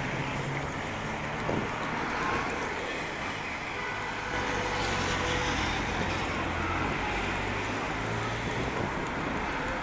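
A line of race team support cars driving past one after another, their engines running steadily under a continuous road-noise haze.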